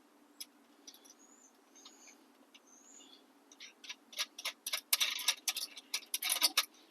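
Metal hardware clinking at first, then a quick run of sharp ratchet-wrench clicks as the engine mounting nuts are run down snug, not yet torqued.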